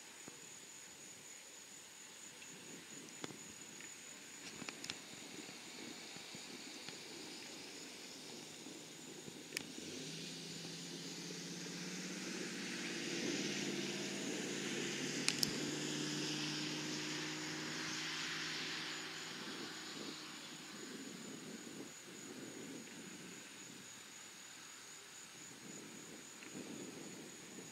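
Boeing C-17 Globemaster III's four turbofan engines heard from the ground as the jet passes overhead: a distant hiss and hum that swells to its loudest about halfway through, then slowly fades.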